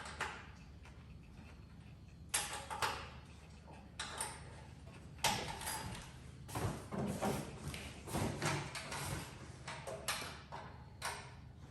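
Irregular knocks, clatter and scrapes of handling noise, in short bursts of a second or less.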